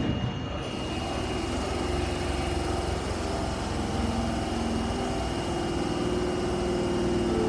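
Tanimachi Line subway train running with a steady low rumble and a thin high whine; from about halfway through its motor whine rises steadily in pitch as the train gathers speed.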